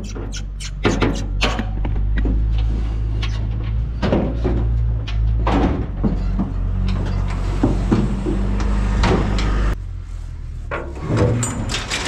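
Bulls walking through a pair of aluminum stock trailers: hooves clattering and knocking on the trailer floor, with bangs from the metal sides and gate. A steady low hum runs underneath and drops lower near the end.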